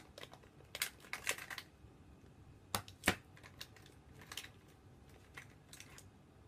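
Irregular light clicks and taps of small objects being handled close to the microphone, in scattered clusters, the loudest pair about three seconds in.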